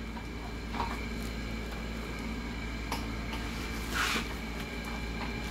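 A few light clicks and taps from objects being handled on a workbench, with one louder scrape about four seconds in, over a steady low electrical hum.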